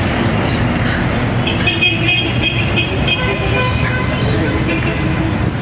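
Steady street-traffic noise: a large motor vehicle's engine running close by, a low continuous rumble, with faint high-pitched tones coming and going.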